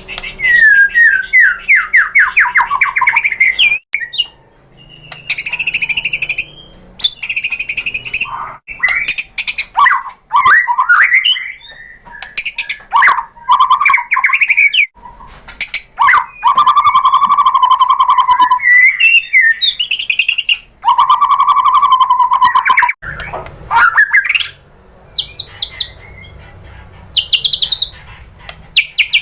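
White-rumped shama (murai batu) singing a loud, varied song: a rapid falling trill at the start, then many quick whistled phrases and sweeps, with two long fast trills past the middle and short pauses between phrases.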